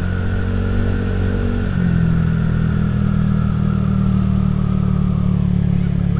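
Motor scooter engine running steadily while being ridden, heard close up from the rider's position; its note shifts slightly about two seconds in.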